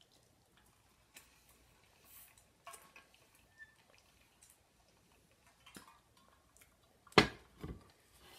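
An insulated water bottle set down on a hard glossy tabletop: one loud knock about seven seconds in and a softer second knock half a second later. Before that, only faint small clicks and ticks while she drinks from it.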